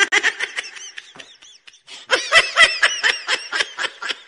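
High-pitched giggling laughter: rapid runs of short 'hee' syllables, easing off briefly before a second, denser burst.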